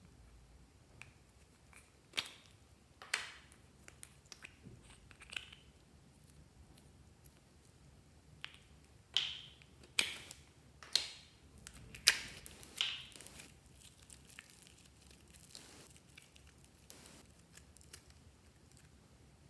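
Clear slime being worked by hand, giving a scattered series of sharp, wet pops and clicks, closest together and loudest about nine to thirteen seconds in.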